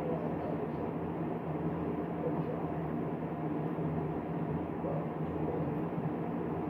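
Steady low hum with hiss, unbroken: background noise of a small room, such as a fan or appliance running.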